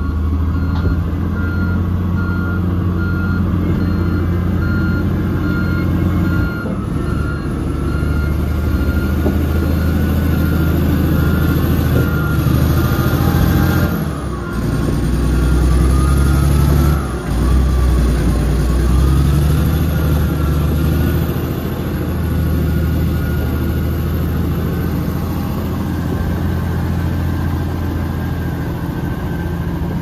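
Komatsu D85EX bulldozer's diesel engine working under load, its note shifting several times as the load changes. A backup alarm beeps steadily through about the first eight seconds, then stops.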